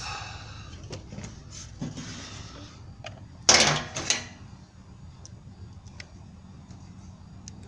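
Scraping and clatter of tools and hose parts being handled, with faint ticks and rustling and one louder burst of scraping about three and a half seconds in.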